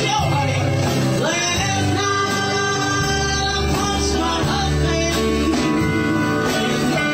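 Live country band playing: acoustic guitar, electric bass and steel guitar, the steel guitar sliding up into held notes about a second in.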